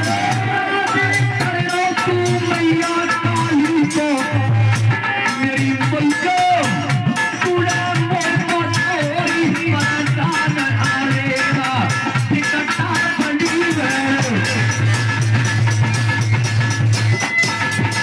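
Music of an Indian devotional folk song (jas): a bending melody line over a steady, quick drum beat.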